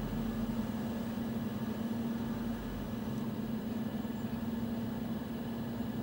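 Steady low hum over an even background hiss, with no change.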